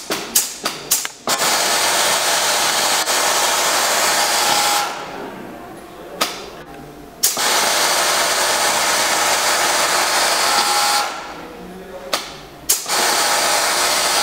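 Juki MO-6714 overlock machine (serger) stitching and trimming fabric edges at high speed, a steady whirring hiss, in three runs of a few seconds each. Between the runs the machine stops briefly, and sharp clicks and fabric handling are heard, most of them in the first second.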